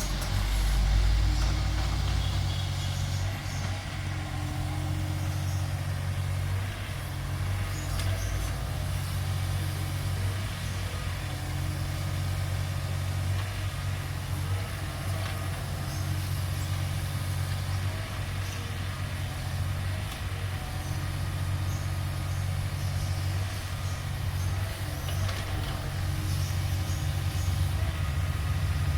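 Heavy diesel engine of earthmoving machinery running steadily with a low rumble, with faint clanks and knocks over it.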